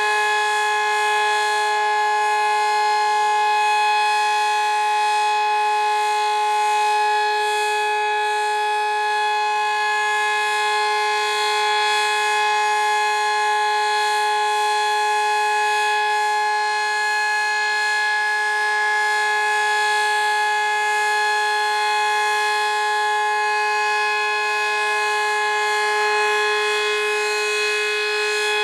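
Sterling M-10 tornado siren with an 8/16-port rotor sounding a steady, unwavering tone of two pitches together, held through a siren test.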